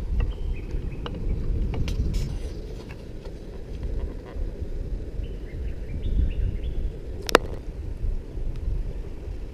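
Outdoor ambience: a steady low rumble with a few short, high chirps and one sharp click about seven seconds in.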